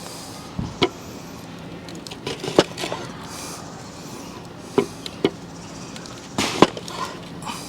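Cookware and utensils being handled: a few short knocks and clinks at irregular intervals over a steady low hum.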